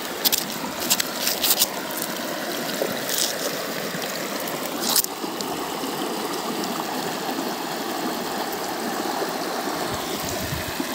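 Rain-swollen muddy stream rushing fast over rocks, a steady rushing of water, with a few sharp ticks in the first five seconds.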